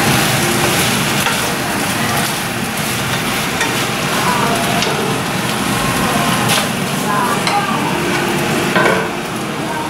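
Diced food sizzling steadily in a frying pan while a wooden spoon stirs it, with a few short scrapes of the spoon against the pan.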